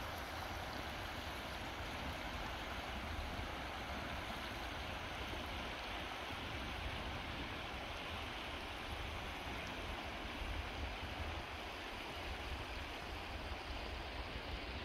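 River water running steadily over a shallow, rocky shoal, with a low rumble underneath.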